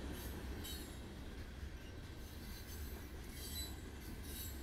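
Freight train of coal hopper cars rolling past, a steady low rumble from the wheels on the rails, with a few brief high-pitched wheel squeals near the start and again near the end.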